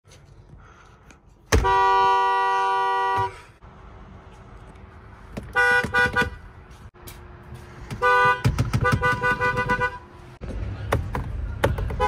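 Volvo car horns sounding, two-note: one long blast about a second and a half in, a few quick toots around six seconds, then a run of short toots from about eight to ten seconds.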